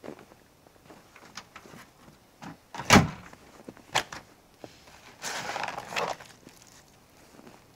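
Pickup truck tailgate slammed shut with one sharp bang about three seconds in, followed by a lighter knock. Then about a second of rustling from the soft bed cover being handled.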